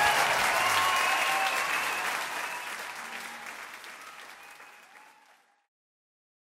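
Audience applauding and cheering at the end of a live song, as the last guitar note dies away; the applause fades out steadily and is gone a little over five seconds in.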